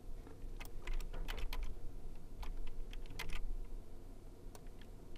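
Light, irregular clicking and tapping from computer input: a quick cluster about a second in, another around three seconds in, and a single click near the end.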